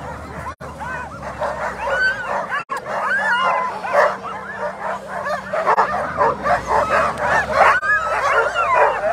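Many sled dogs, Alaskan huskies, barking and yelping together in dense, overlapping short calls that grow louder toward the end, with two brief dropouts near the start. Teams fired up and eager to run.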